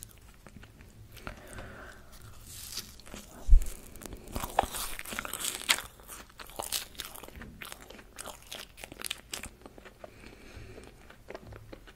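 White marshmallows bitten and chewed close to the microphone: a run of soft, sticky clicks, densest in the middle, with one low thump about a third of the way in.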